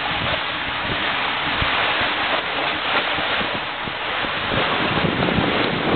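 Rushing, splashing water of a waterslide run in an enclosed tube section, a steady loud wash of noise with wind buffeting on the microphone.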